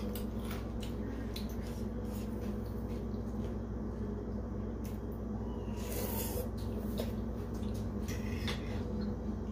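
A person eating noodle soup: short clinks and scrapes of a fork and spoon in a ceramic bowl, mixed with slurping and chewing, the longest sound about six seconds in. A steady low hum runs underneath.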